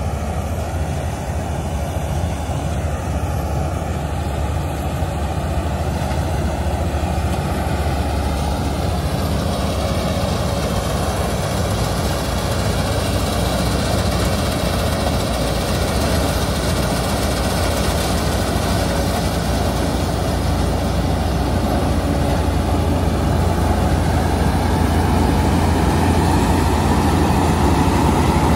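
Diesel engines running steadily: a tractor's engine up close and a Green Gold combine harvester working its way in, the combined sound slowly growing louder as the combine comes alongside.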